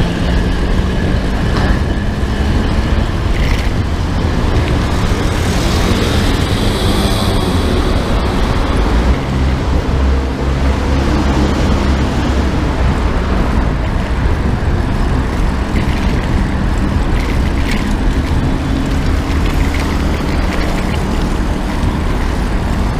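Steady city road traffic: cars and trucks running in the lanes alongside a bicycle lane, with a brief hiss about six seconds in.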